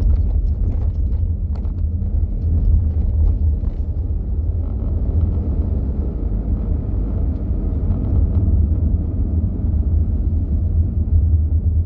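Steady low rumble of a car driving on the road, heard from inside the cabin, with a few light clicks in the first few seconds.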